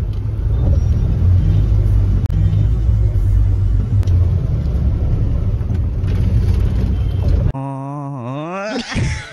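Steady low engine and road rumble inside a moving vehicle's cabin. About seven and a half seconds in it cuts off suddenly, and a man's voice sings into a microphone, sliding up and down in pitch.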